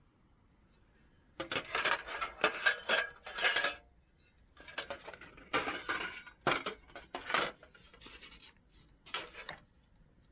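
Metal camp cookware or gear clinking and clattering as it is handled, in several bursts of rattling knocks.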